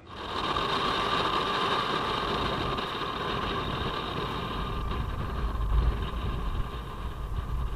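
Kawasaki Versys-X 250 parallel-twin motorcycle cruising on a highway, its steady engine note mixed with wind and road noise at a helmet-mounted camera. A low rumble grows louder about five seconds in.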